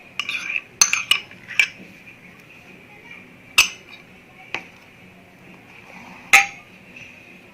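Spoon clinking and knocking against a bowl as mayonnaise is spooned into milk. There is a quick run of clinks in the first couple of seconds, then three single knocks spaced out.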